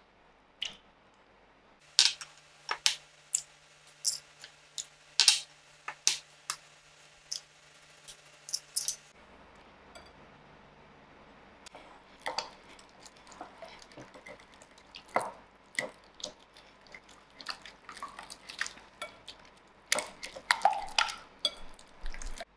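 Sharp clinks of glass and a wire whisk against a glass mixing bowl, a spaced run in the first part. About halfway through comes quicker, lighter clinking and tapping as butter and eggs are whisked together.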